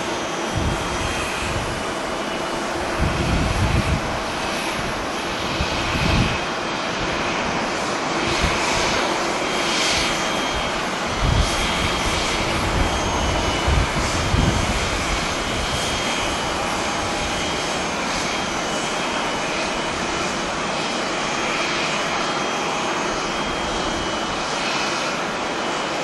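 Jet airliner engines running: a steady noise with a faint high whine. Gusts of wind buffet the microphone several times, loudest in the first half.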